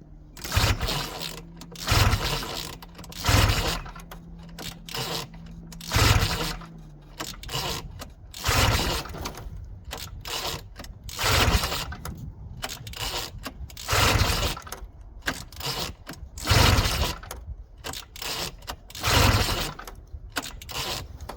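A 1971 Ski-Doo Olympic's two-stroke engine being pull-started over and over, about eight hard recoil pulls a couple of seconds apart, cranking without catching: fuel has not yet been drawn up to the freshly cleaned carburetor.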